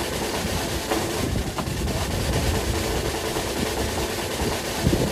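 Fishing boat's engine running, a steady rumble under a broad hiss.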